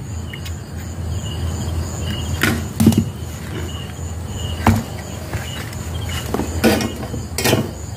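Sewing-machine control board being handled on a workbench: a handful of sharp knocks and clicks as it is turned over and set down, over a steady low hum and a faint high chirp that repeats throughout.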